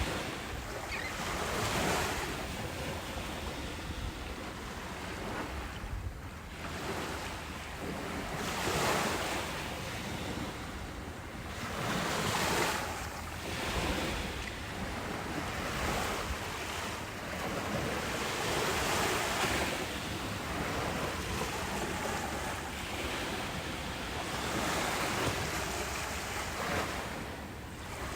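Ocean waves breaking and washing on a beach, the surf swelling and easing every few seconds, with wind buffeting the microphone.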